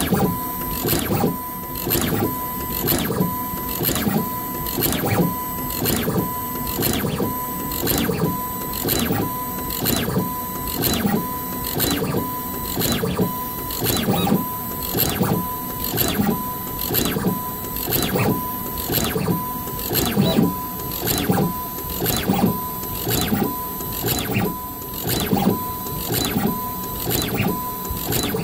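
Braille bead-insertion head on a CNC sign engraving machine, working along the rows and setting beads into a sign plate. It runs as an even mechanical cycle repeating a little more than once a second, each stroke with a brief high tone.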